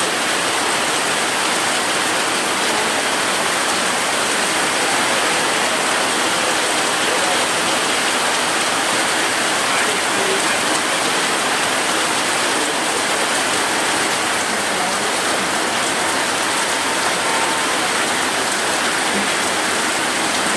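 Heavy rain falling steadily: a dense, even hiss that neither swells nor fades.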